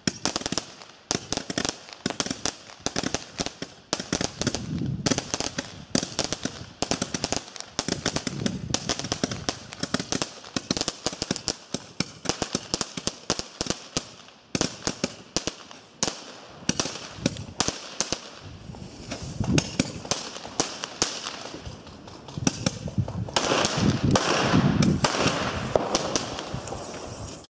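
A 200-shot comet tube firework firing in quick succession: a long run of sharp pops, several a second. From about 23 seconds in, a louder continuous rushing noise runs under the pops.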